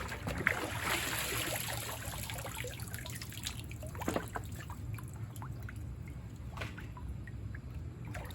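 Standing floodwater in a basement trickling and dripping, with small splashes and a louder rush of water about a second in, over a steady low hum.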